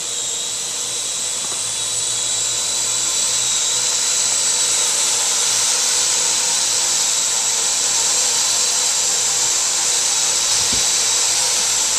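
Parrot quadcopter drone hovering, its electric rotors whining steadily with a high tone as it turns in place for a panoramic view. It grows a little louder over the first couple of seconds, and there is a brief low knock near the end.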